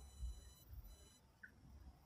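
Near silence: a faint low rumble of distant vehicles, with a faint high whine during the first second and one short high chirp about one and a half seconds in.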